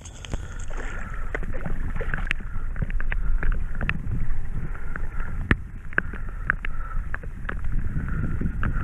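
Wind rumbling on the microphone over water noise around a kayak, with many scattered sharp ticks and clicks.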